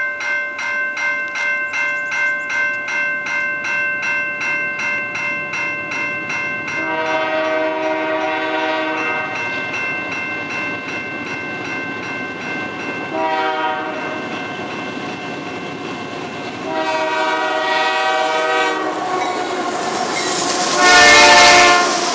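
Canadian Pacific GE AC4400CW locomotive air horn sounding several blasts as the train approaches: long, then short, then long. The last blast, near the end, is the loudest as the lead unit passes close. Before the horn starts, a bell rings steadily at about two strokes a second.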